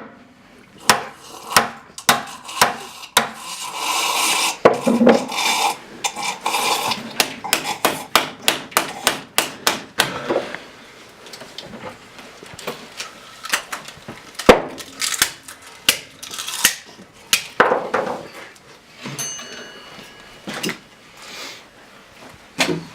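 Irregular knocking and clattering of hard objects being handled and struck: many sharp knocks and taps, densest in the first half, with one loud knock past the middle.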